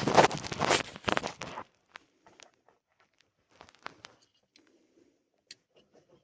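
Rustling and scraping as hands work a plastic clip and the parts behind a pickup's glove box, loud for about the first second and a half, then a few faint clicks and taps.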